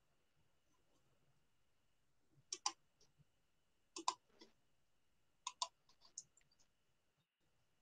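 Near silence broken by faint, sharp clicks, mostly in close pairs, three pairs about a second and a half apart, then a few lighter ones.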